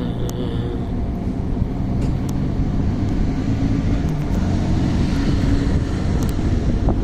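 Heavy engine of road-construction machinery running steadily with a low rumble, with a few faint clicks over it.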